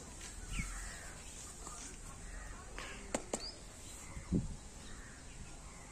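Outdoor background with a few faint bird chirps, two sharp clicks a little after three seconds, and a low thump at about four and a half seconds.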